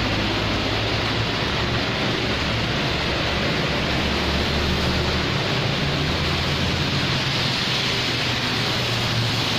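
Steady rain falling on the street and nearby surfaces, a constant hiss. Under it, the low rumble of motorbikes and cars driving past on the wet road, swelling around the middle.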